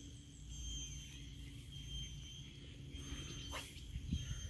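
A fishing rod is cast, with a quick swish about three and a half seconds in, over a steady high-pitched chirring of insects and a low rumble.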